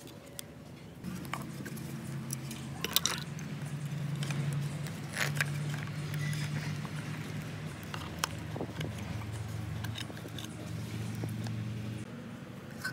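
Background music of low held notes that shift every few seconds, starting about a second in and stopping near the end, with a few light clicks and clinks of small parts being handled over it.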